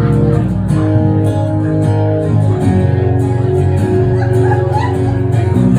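Guitar playing chords, the notes ringing on and changing every second or so.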